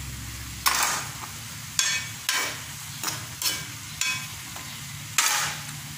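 A metal spoon stirring and scraping the inside of a wok of sautéing white gourd (upo) and chicken: about seven separate scrapes and knocks, with the food frying between them.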